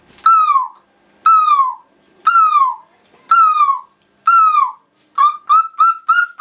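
A boy imitating an animal cry with his voice: five whistle-like yelps about a second apart, each sliding down in pitch, then four shorter, quicker ones near the end.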